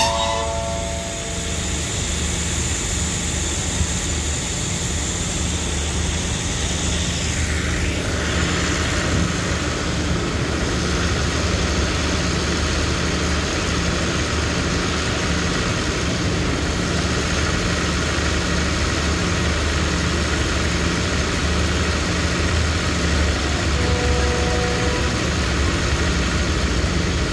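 Steady drone of a diesel engine idling on a passenger train standing at the platform: a constant low hum under an even hiss. A brief faint tone sounds near the end.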